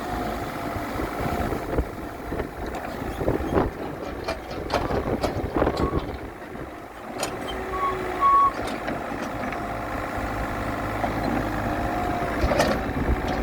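Mini backhoe's engine running steadily, with repeated knocks and clanks and two short high beeps about eight seconds in.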